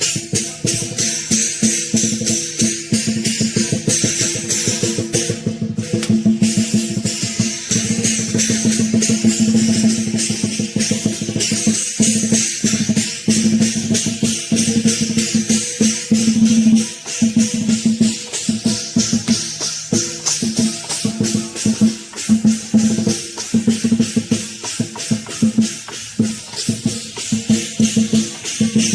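Lion dance percussion: a drum, crashing cymbals and a gong, beating a fast, steady rhythm with a ringing tone sustained underneath.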